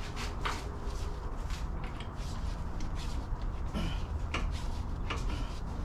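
Scattered light clicks and knocks of hands and tools working on a power steering pump and its lines in an engine bay, over a steady low rumble.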